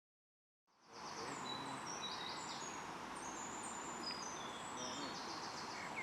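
Outdoor ambience fading in from silence just under a second in: a steady hiss of background noise with small birds chirping repeatedly in short, high notes.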